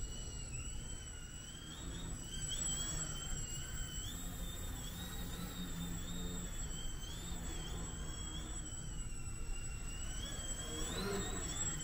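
Small electric motor and propeller of a foam control-line model airplane in flight, giving a thin high whine that rises and falls in pitch over and over as it circles.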